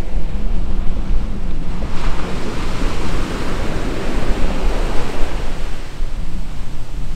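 Small sea waves washing up a sandy beach: one rush of surf swells up about two seconds in and fades out near the end. Wind rumbles on the microphone throughout.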